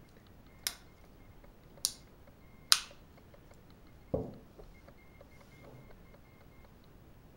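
Three sharp clicks about a second apart, then a duller thump about four seconds in. A faint high beeping tone pulses in the background.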